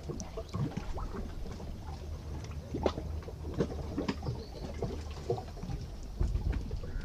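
Scattered light clicks and taps of hand work at a sailing yacht's rudder stock, where shims are being fitted to take up play in the rudder bearing, over a low wind rumble on the microphone that grows louder near the end.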